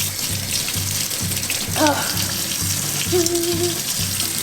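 Tap water running into a sink while utensils are rinsed under it, with light background music that has a steady beat.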